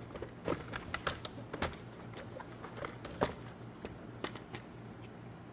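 Scattered light clicks and knocks of a plastic jump-starter case being pried apart by hand and its cover lifted off, a dozen or so small taps spread unevenly.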